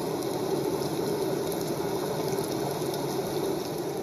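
Steady rushing wind of a blizzard sound effect, an even, unbroken hiss with no rhythm.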